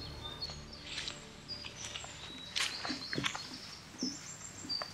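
Small woodland birds chirping and calling in short high notes, with a few sharp footsteps and knocks, one near the end as hikers step onto a wooden plank boardwalk.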